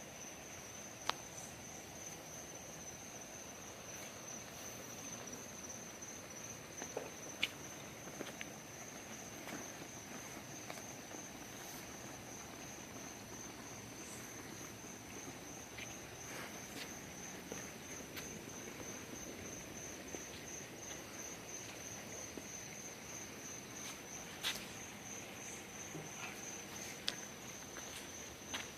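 Insects trilling outdoors, a steady, high, rapidly pulsing chirr, with a few sharp clicks or taps scattered through it.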